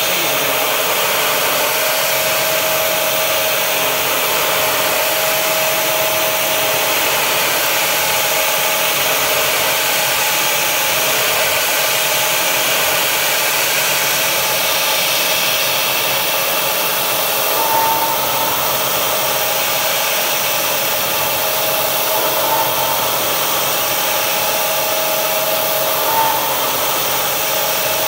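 Steady loud air hiss of a mist coolant sprayer over a CNC milling machine cutting with a 3-flute carbide end mill, with a steady cutting tone under it. A few brief higher tones rise out of it in the second half.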